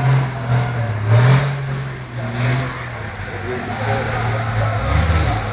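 Race trucks' turbo-diesel engines running hard as they pass on the circuit, a deep engine note rising and falling in pitch, with a few short hissy bursts.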